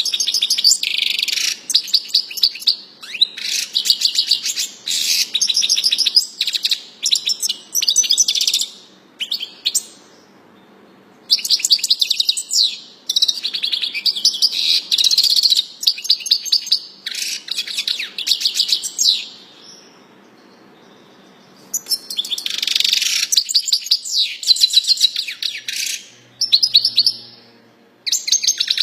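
A songbird singing long phrases of fast chirps and trills, high-pitched and loud, with two pauses of a second or two, about a third and two thirds of the way through.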